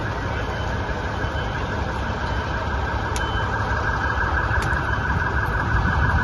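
Steady street noise from emergency vehicles: SAMU ambulances running at a crash scene with an emergency siren sounding among them.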